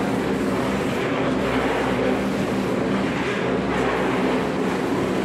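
Airless paint sprayer running steadily while spraying roof coating: a constant motor-and-pump hum with the hiss of the spray.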